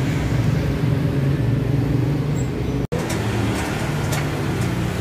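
Steady low rumble of a running motor vehicle, continuous apart from a brief dropout about three seconds in, with a few faint clicks after it.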